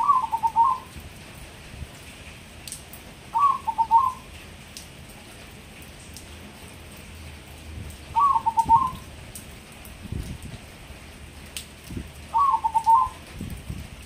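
Crossbred zebra dove (perkutut crossing) singing its cooing song four times, a few seconds apart, each phrase a quick rolling run of notes under a second long.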